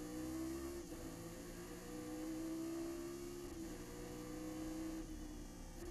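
Chevrolet Nova race car's engine under full throttle, heard from inside the cockpit, its pitch climbing steadily as the car gains speed. It is cut short by quick upshifts about a second in, about three and a half seconds in, and again right at the end.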